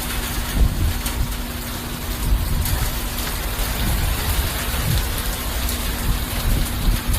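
Heavy hurricane rain pouring down in a dense, steady hiss, with uneven low rumbles and a faint steady hum underneath.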